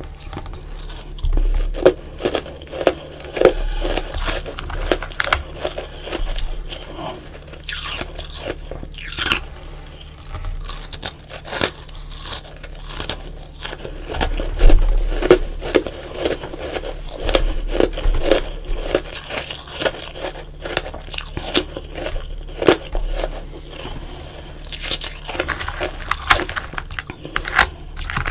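Close-miked crunching and chewing of powdery frost ice: crisp, crackly bites followed by steady chewing at about two strokes a second, with a loud crunch about halfway through.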